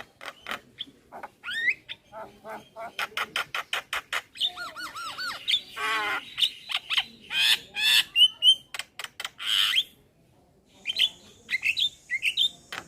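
Male Javan myna singing: rapid runs of sharp clicking notes mixed with bending whistles and harsh squawks, with a short pause about ten seconds in.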